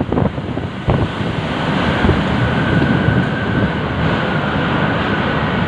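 Cyclone-force wind blowing in heavy gusts, buffeting the microphone in a dense, steady rush. A faint high whistle rises out of it for a couple of seconds in the middle.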